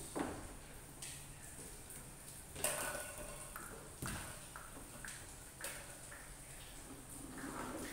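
Plastic toys handled on a tiled floor: a toy dump truck and a small plastic sand shovel giving a few scattered sharp knocks and scrapes.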